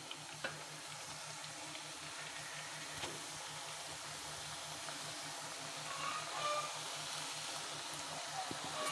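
Pakkavada dough sizzling as it is pressed from a metal idiyappam press into hot oil in a frying pan, with a couple of light clicks.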